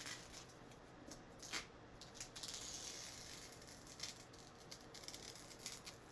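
Green painter's tape being peeled off the edges of a painted board: faint crinkling and ripping with light ticks as each strip comes away.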